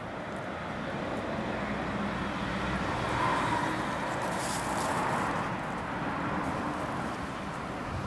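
Steady outdoor background rumble and hiss that swells a few seconds in and eases off again.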